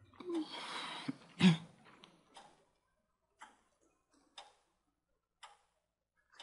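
A wall clock ticking slowly, about one tick a second. Near the start there is a breathy sigh and a brief throat sound.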